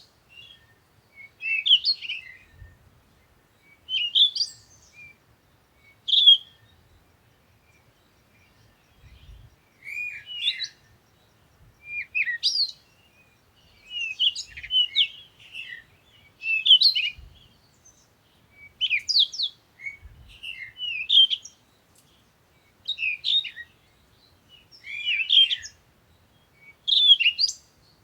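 A songbird singing short, rapid chirping phrases, one about every two seconds, with a pause of a couple of seconds after the fourth phrase.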